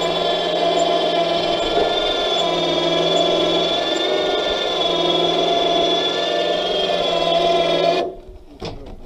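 12-volt electric winch on a Harbor Freight truck crane running under load, hoisting a heavy log: a steady motor whine that starts suddenly and cuts off about eight seconds in.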